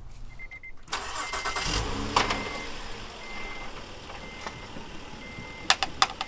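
A minivan's engine cranked and started, then running at idle, while a car warning chime beeps about once a second with the driver's door open. A few sharp clicks near the end.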